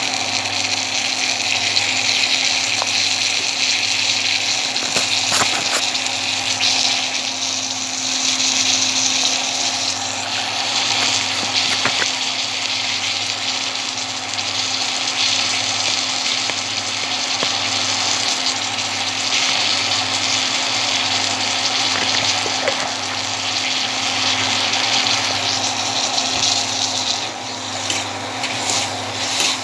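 Leafy greens sizzling steadily as they fry in a wok, over a steady low hum. A few sharp clicks of the metal spatula against the pan come about five, six, twelve and twenty-two seconds in.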